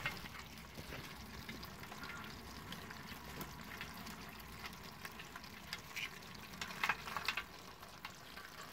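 A bucketful of live American signal crayfish crawling over one another, giving a faint crackle of scattered clicks and scrapes from their shells and claws. A few louder clicks come about seven seconds in.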